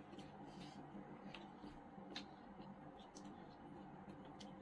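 Faint eating sounds: scattered soft clicks of chewing and fingers working rice on a plate, over a low steady hum.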